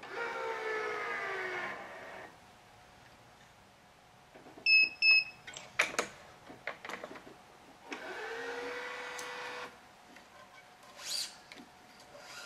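Electric tensioner motor of a Gamma 6004 stringing machine pulling a badminton string to 30 lb: a whine that falls in pitch as the tension builds. About five seconds in the machine gives two short high beeps, sharp clamp clicks follow, and about eight seconds in the motor whines again for under two seconds.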